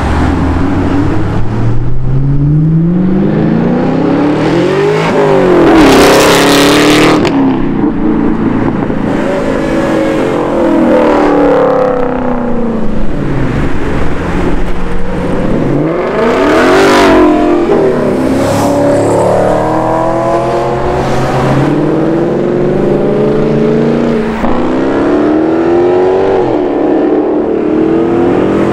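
Sports cars, among them a Ford Mustang and a Chevrolet Camaro, accelerating hard past one after another, engine pitch climbing and dropping back at each upshift. The two loudest passes come about six and seventeen seconds in.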